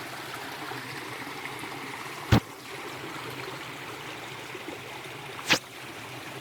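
Small forest stream gurgling steadily. Two short sharp clicks about three seconds apart stand out above it.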